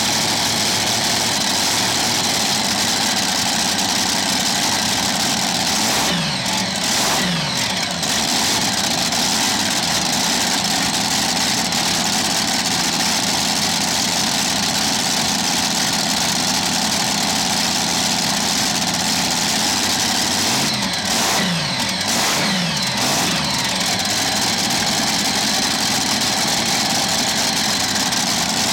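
Pulling tractor's racing engine running loudly at a fast idle. The revs rise and fall briefly twice, about six seconds in and again around twenty-one seconds.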